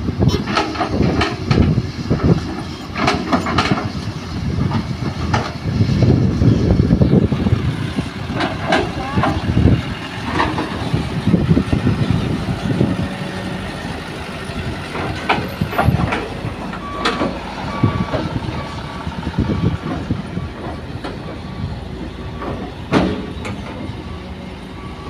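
Diesel engines of dump trucks and an excavator running, with scattered knocks and clanks of soil and rock being loaded. Past the middle, a reversing alarm beeps for several seconds.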